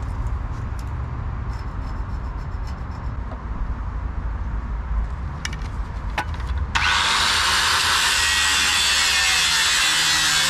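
Angle grinder with a cut-off disc cutting through a rusty square steel tube: a loud, steady, hissing grind that starts abruptly about two-thirds of the way in. Before it, only a low rumble and a few light clicks.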